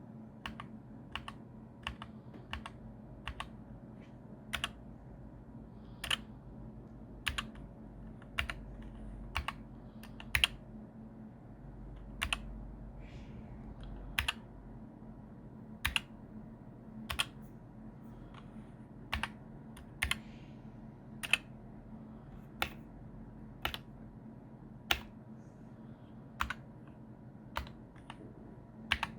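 Keychron K8 mechanical keyboard keys pressed one at a time, single sharp clacks about once a second at an uneven pace, over a faint steady low hum.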